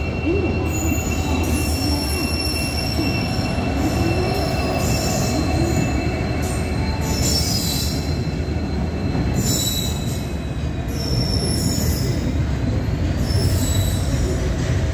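Goods train of open freight wagons rolling past: a steady rumble of wheels on rail with a thin, high-pitched wheel squeal, swelling into a hissing screech every one to two seconds.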